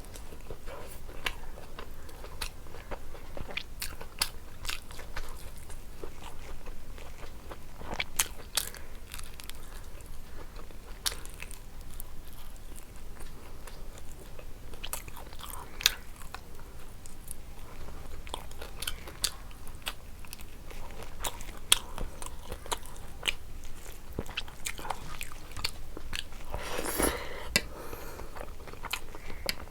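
A person chewing and crunching food close to the microphone: irregular crisp clicks and smacks of biting and chewing, with one louder, longer sound near the end.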